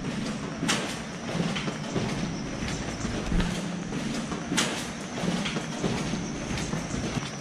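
Footsteps of several people walking on a concrete floor, mixed with clothing and handheld-camera rustle, with a couple of sharp clicks about a second in and again past halfway.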